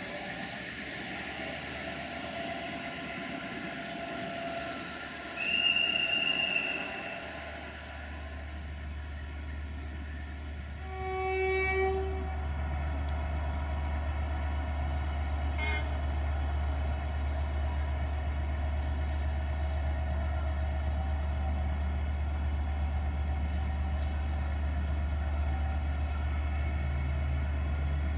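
Diesel locomotive rumbling, its steady low engine note stepping up about seven seconds in and then holding. A short, high single-tone whistle sounds before the step-up, and a train horn blast of about a second comes a few seconds later.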